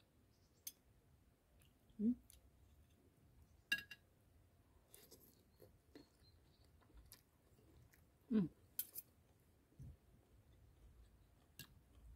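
Close-up eating sounds: a fork and spoon clinking on a ceramic bowl, and chewing and slurping of stir-fried cabbage leaves and water spinach. Scattered small clicks throughout, and two short vocal sounds, about two seconds in and again past eight seconds.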